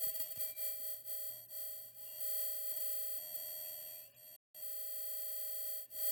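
Steady electronic whine made of several fixed high tones over a low hum, typical of powered-up CRT monitor and video test gear. The sound cuts out completely for a split second about four seconds in.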